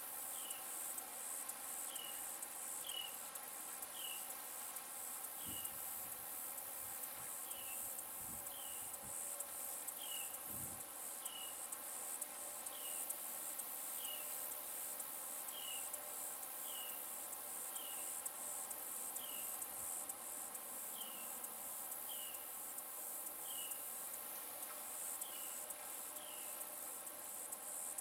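A steady, high, finely pulsing buzz of insects, with a short, slightly falling chirp repeated every second or so.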